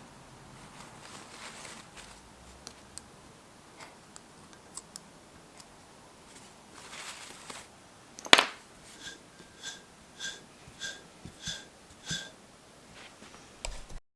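Small workshop handling noises: scattered light clicks and a brief scrape, a sharp click about eight seconds in, then a run of about seven short squeaks, one roughly every half second.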